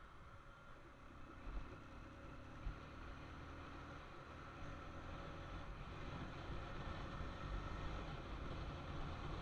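Motorcycle riding: a Bajaj Pulsar 220F's single-cylinder engine running low under a steady rush of wind on the camera. It gradually gets louder, with two short low thumps in the first three seconds.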